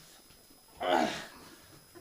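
A man's short strained grunt, a single voiced effort sound with falling pitch about a second in, made while holding a stretch.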